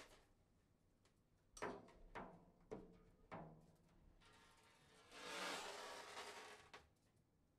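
Sparse drum-kit playing in free improvisation: four separate struck hits with ringing tails, about half a second apart, then a hissing wash that swells and fades over about two seconds.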